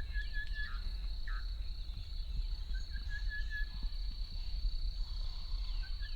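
Bush ambience: an insect trills steadily at a high pitch while a bird repeats a short phrase of several quick even notes about every three seconds, over a low rumble.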